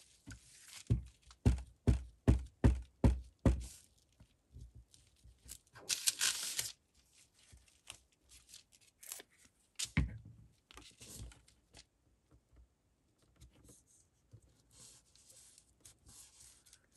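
Collage paper being handled on a tabletop: a quick run of about eight dull taps in the first few seconds, a short scratchy paper sound about six seconds in, then a single thump around ten seconds and light paper rustling.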